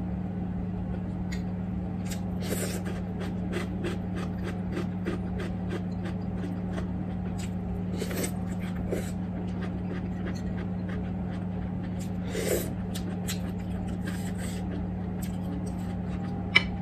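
Eating sounds: wet chewing and mouth clicks with a few short breaths through the nose, over a steady low hum. Near the end a metal fork clinks sharply against a ceramic bowl.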